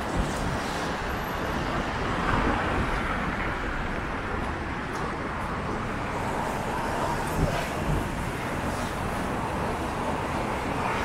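Steady road traffic noise from cars passing on a wide avenue, tyres hissing on the wet, slushy road.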